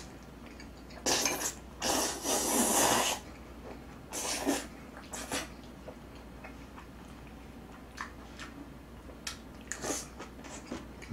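A person slurping jjajangmyeon noodles in several noisy sucking pulls, the longest lasting over a second about two seconds in, then only faint mouth noises and small clicks.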